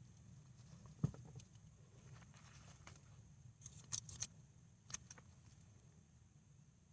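Mostly quiet, with a few faint knocks and rustles from handling soil and freshly dug sweet potatoes: one about a second in, a short cluster around four seconds, and another just after.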